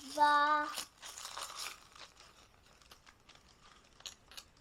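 A child's voice holds a short note at the start. Then thin plastic packaging crinkles and tears, followed by faint small clicks and taps.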